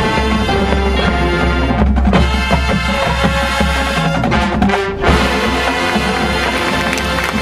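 Marching band playing loudly: brass over drums and percussion, with sustained low bass notes and a brief break about five seconds in.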